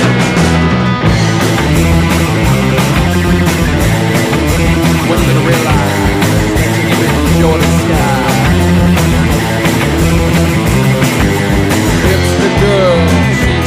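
Instrumental break of a rock song: electric guitars playing over a steady beat, with no singing.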